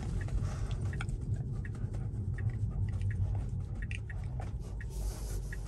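Low, steady cabin rumble of a Tesla rolling slowly, with faint, irregular small clicks and crackles scattered throughout.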